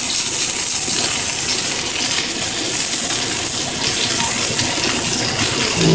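Potatoes being mashed by hand in a glass bowl, the masher scraping and knocking, over a loud steady hiss from the stovetop where steak is frying in cast-iron pans.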